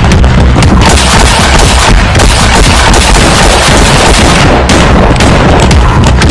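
Paintball markers firing, many sharp pops in quick succession over a loud, dense rush of noise.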